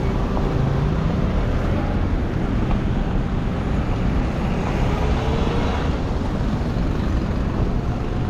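Steady road traffic noise from motor vehicle engines, with an engine's pitch rising briefly about half a second in and again around the middle.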